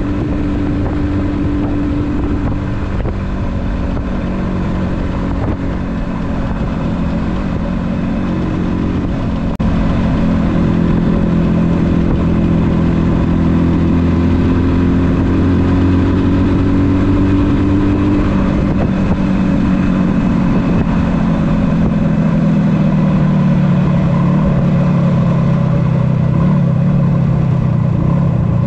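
1976 Yamaha RD400's two-stroke parallel-twin engine running under way. About a third of the way in it gets louder and its pitch climbs steadily for several seconds as the bike accelerates, then the pitch drops back and sinks lower toward the end.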